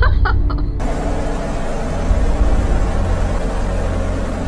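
Steady deep rumble and rushing noise of storm wind buffeting the microphone, thickening into a full hiss about a second in.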